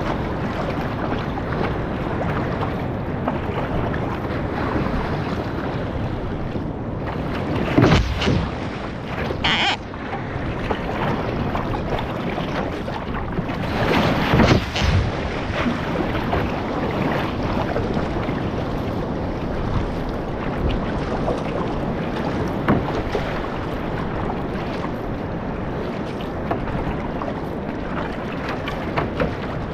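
Steady wind on the microphone and water rushing past a one-person outrigger canoe being paddled through ocean swell. Loud splashes about eight seconds in and again around fourteen to fifteen seconds in, as spray breaks over the canoe.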